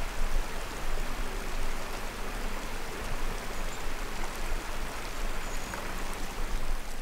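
Steady, even rushing outdoor ambience, with faint low held tones beneath it.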